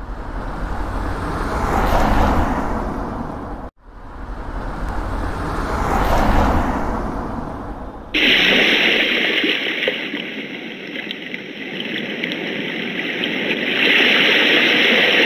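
Two cars passing by, one after the other, each swelling and then fading over about four seconds, the first cut off abruptly. About eight seconds in, steady rain starts suddenly.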